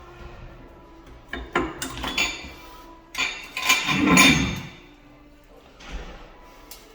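Parts of a Sloan flushometer valve clinking and knocking as they are handled during a gasket change: a few sharp clicks, then a louder run of ringing clinks about four seconds in.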